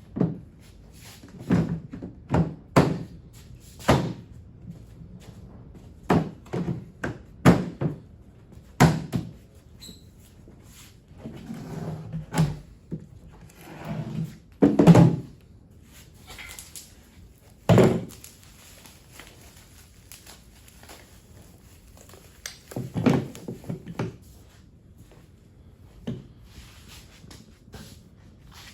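Irregular thunks and knocks of hollow plastic tool-cart parts being handled and fitted together during assembly, with a few short bursts of rustling or scraping in between.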